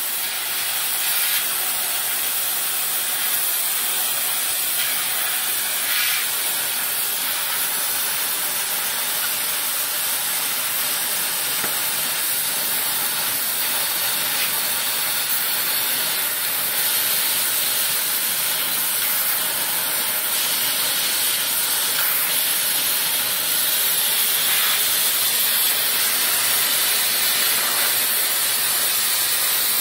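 Multipro LCM 2500 laser cutting machine cutting sheet steel: a steady hiss of the cutting jet at the head, running without a break.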